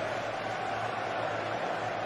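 Steady background noise of a floodlit outdoor football pitch, an even hiss with a low hum underneath and no distinct event.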